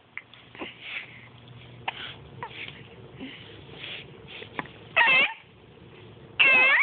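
A nine-week-old baby hiccuping, short sharp clicks now and then, and cooing in two loud high-pitched calls, the first about five seconds in and the second near the end.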